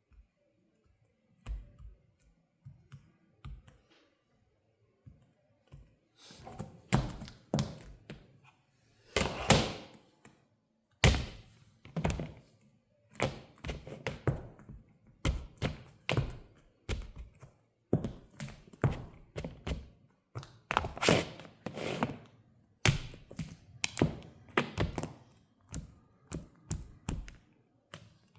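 Mule shoes treading on and crushing a banana on a hard floor: repeated thuds and heel taps with sticky, squishy smears. The steps are sparse and faint at first, then come steadily and louder from about six seconds in.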